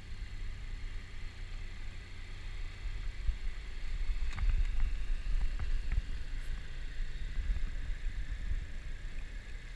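Small boat underway: a steady low engine rumble mixed with wind buffeting the microphone. It gets louder and gustier about halfway through, with a few light knocks.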